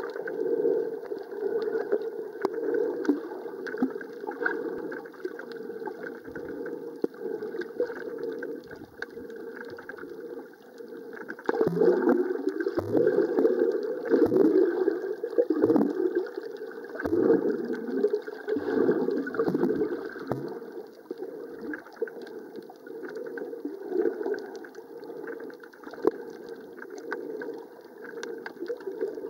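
Muffled underwater water noise picked up by a submerged camera: a steady dull rush, with a run of rising swooshes in the middle as the water surges past.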